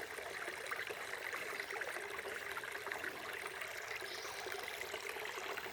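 Small creek flowing: a steady babble of running water.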